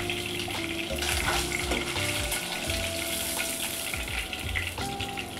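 Katla fish pieces sizzling in hot mustard oil in a nonstick pan. A few light clicks and scrapes come from a slotted metal spatula as the fried pieces are lifted out.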